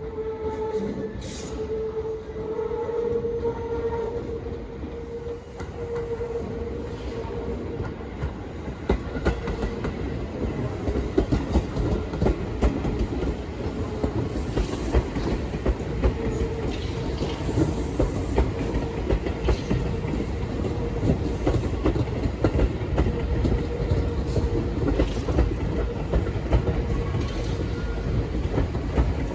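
Tobu Tojo Line electric train running on the track, its wheels clattering over the rail joints. A steady tone sounds over it for the first several seconds, and the clatter grows busier and louder from about eight seconds in.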